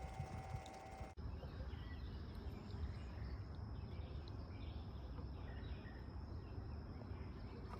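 Outdoor ambience: a steady low rumble, like wind on the microphone, with a thin steady high-pitched whine over it. The sound cuts out briefly about a second in, then resumes.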